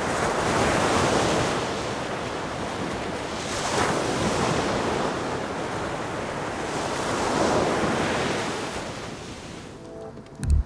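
Ocean surf breaking on a beach, surging about three times, with wind buffeting the microphone. Near the end the surf falls away and a single low thump sounds, a car door shutting.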